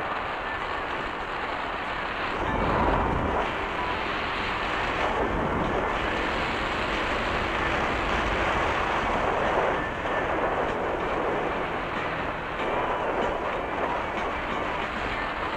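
A Honda PCX scooter under way: steady wind and road noise on the mounted camera's microphone, with louder low buffeting swells about three and ten seconds in. Its tyres clatter over road rumble strips.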